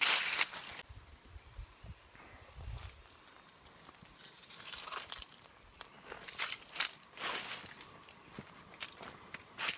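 Footsteps of a hiker in rubber-soled moccasins on a leaf-strewn forest trail, a few scattered steps. A steady high-pitched insect drone sets in about a second in and runs on.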